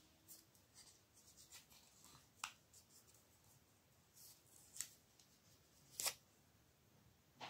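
Faint rustling and crinkling of paper being folded and pressed around a small stack of iron strips, with a few short crisp crackles, the loudest about six seconds in.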